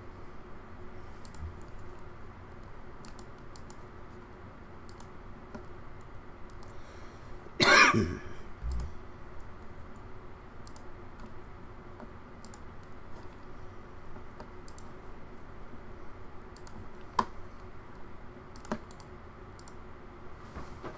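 Scattered clicks of a computer mouse and keyboard during photo editing, over a steady faint hum. About eight seconds in there is a single cough, the loudest sound.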